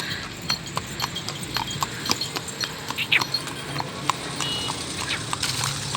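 A horse's hooves clip-clopping as it walks: a quick, uneven run of sharp hoof strikes, several a second.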